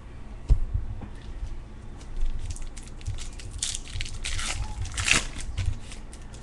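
Baseball card pack wrapper crinkling and tearing open in the hands, a dense run of crackles through the middle of the stretch, with a dull handling bump near the start.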